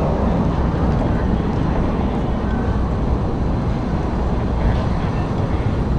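Steady low rumble of outdoor street noise.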